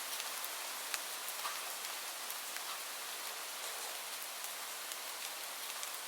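Steady rainfall: an even hiss of rain on a surface, with scattered sharper drop ticks, the clearest about a second in and near the middle.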